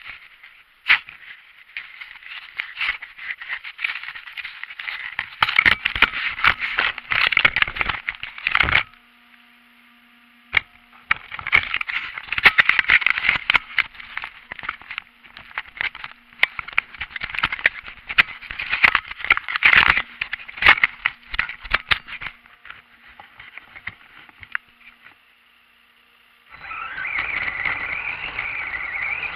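Onboard camera of an RC truck ploughing through snow: dense crackling and scraping as snow packs against the camera housing, in bursts with a short lull about nine seconds in. Near the end a steady high-pitched whine of the truck's motor and gears takes over as it drives clear.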